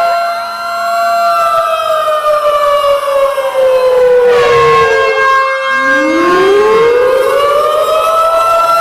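Several sirens sounding at once, loud: a tornado-warning siren's wail slides slowly down over about four seconds, then winds back up again, over other steady and wailing siren tones. A brief cluster of higher tones cuts in about four to five seconds in.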